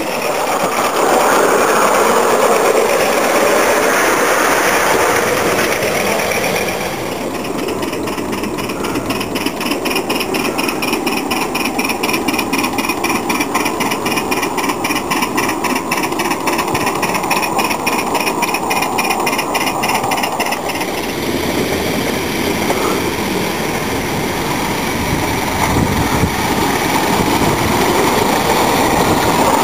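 Miniature live-steam locomotives running on a model engineering track with a driver riding behind, the noise of the engine and wheels on rail continuing throughout. For a stretch in the middle a rapid, even beat sounds out.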